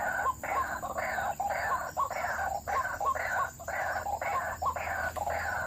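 White-breasted waterhen (ruak-ruak) calling in a steady, unbroken series of repeated calls, about two a second.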